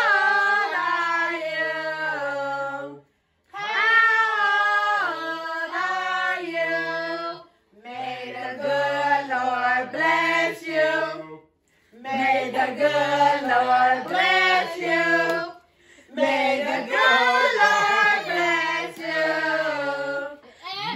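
A group of voices, children and women together, singing a song unaccompanied in phrases of about four seconds, with brief pauses between them.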